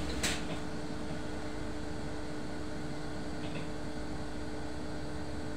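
Steady hum inside an electric bus's passenger cabin, a constant droning tone over a low rumble, with one short sharp click about a quarter second in.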